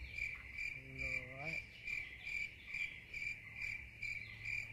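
Cricket chirping sound effect: a steady, even chirp about twice a second, cut in abruptly. It is the comic 'crickets' gag for an awkward silence while no answer comes. A brief, faint rising hum is heard about a second in.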